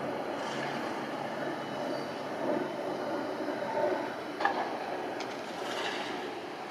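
Steady distant rumble of an MC-21-300 airliner's Pratt & Whitney PW1400G geared turbofan engines in flight, with a sharp tick about four and a half seconds in.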